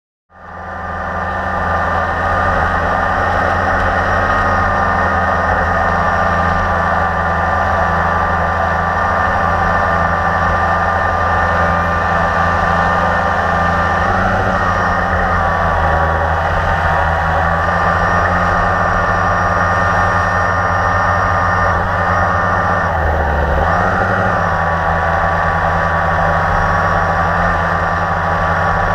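Blade 350QX quadcopter's electric motors and propellers humming steadily, heard from the camera mounted on it; the sound fades in at the start and its pitch dips briefly near the end.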